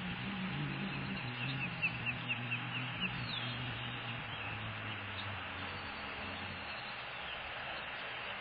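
Osprey chirping: a quick series of about eight short, high whistled chirps between about one and three seconds in, over steady wind and water noise.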